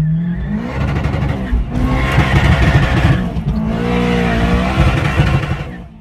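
A car engine revving, its pitch climbing at the start, over a loud rushing noise with changing engine tones, cutting off abruptly near the end.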